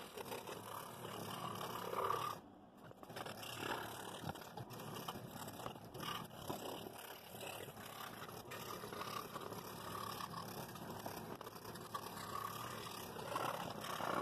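Scroll saw with a No. 5 blade cutting quarter-inch wood, a steady rasping buzz of the reciprocating blade as the blank is fed through, briefly dropping away about two and a half seconds in.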